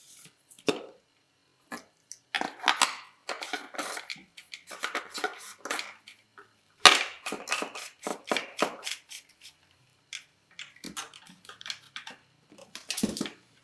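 Plastic clicking, knocking and scraping as a reverse osmosis membrane is pushed into its plastic housing and the housing cap is screwed on by hand, in irregular bursts with short pauses.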